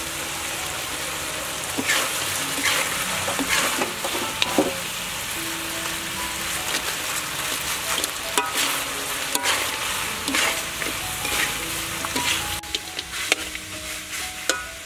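Chicken and crispy battered eggplant sizzling in a hot wok, stirred with a metal spatula that scrapes and clanks against the pan every second or so. The sizzle eases a little near the end.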